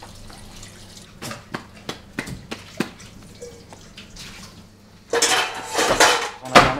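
Hands kneading and shaping a soft ball of pizza dough: scattered soft sticky squelches and light pats. About five seconds in there is a louder rushing sound lasting about a second, followed by a couple of sharp knocks.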